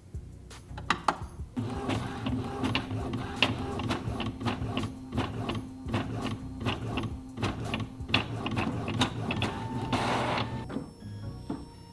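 Epson ink-tank all-in-one inkjet printer making a copy: its motors run with a steady hum under rapid, irregular clicking as the print head moves and the page feeds out, with a brief louder whirr near the end.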